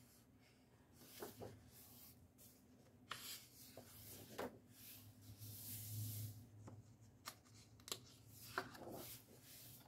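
Faint rustling of paper as the pages of a coloring book are turned by hand: several page flips with soft swishes and a few light ticks, busiest in the second half.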